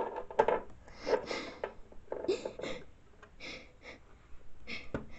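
A person sobbing: a run of short breathy sobs and sniffs with a brief whimper, and a sharp tap near the end.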